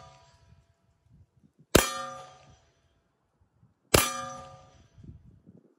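9mm pistol-caliber carbine fired twice, about two seconds apart, each shot met at once by a steel target plate ringing out and fading over most of a second. The ring of the shot before fades out at the start.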